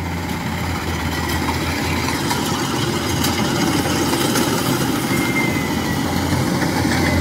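Kubota crawler combine harvester working through rice, its diesel engine and threshing machinery making a steady mechanical hum that grows slowly louder as it comes closer.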